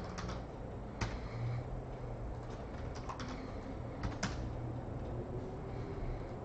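Computer keyboard keystrokes and clicks, a few at a time with pauses between them, over a low steady hum.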